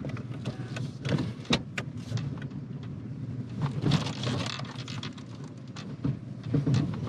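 In-cab sound of a Nissan Xterra with its 4.0-litre VQ40DE V6 creeping along a rough dirt trail: a steady low engine hum with scattered knocks and rattles as it bounces over the ground, a little louder about four seconds in.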